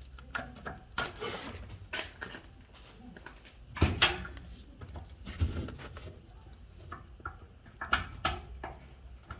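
Irregular clicks, clanks and knocks of tools and parts being handled during plumbing work, the loudest knock about four seconds in.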